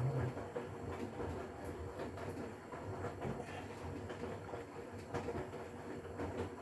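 Hotpoint Core washing machine with its inverter motor running. The motor whines up in pitch as the drum starts turning, followed by a steady rumble with irregular knocking that dies away after several seconds.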